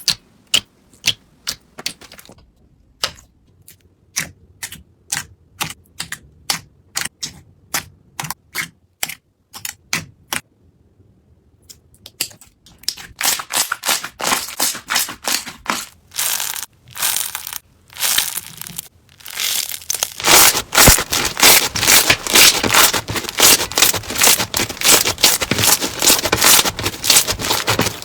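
Slime being worked by hand close to the microphone. It starts as a run of sharp, separate pops and clicks, about two or three a second. From about halfway it turns into dense, louder crunching and crackling, like crunchy slime being squeezed and pressed.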